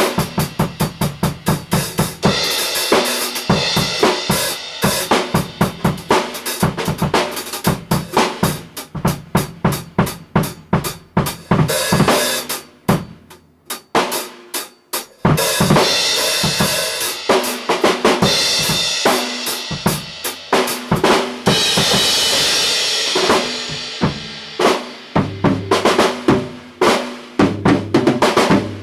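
Acoustic drum kit played solo: rapid strokes on snare, bass drum and toms with cymbal crashes. About halfway through it thins to a few quieter strokes, then builds back up with ringing cymbals and runs of deeper tom hits near the end.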